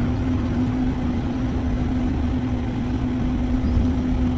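A steady machine hum with one low, even tone under a constant background noise.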